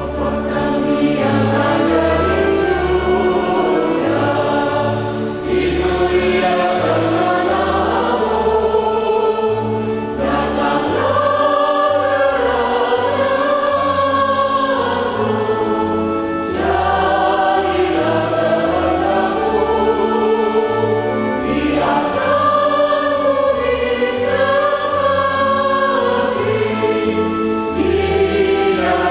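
Mixed church choir of women's and men's voices singing a hymn in harmony, accompanied by an organ holding sustained bass notes.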